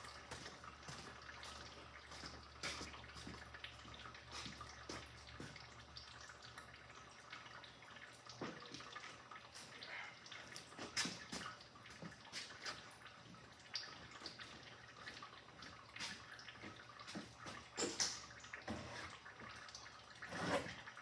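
Liquid dripping and splashing into a container, among scattered small clicks and knocks.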